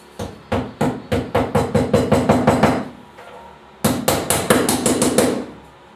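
Hammer tapping a plastic wall plug into a hole drilled in porcelain tile: two runs of quick, sharp taps, the first speeding up, then a pause of about a second before a faster second run.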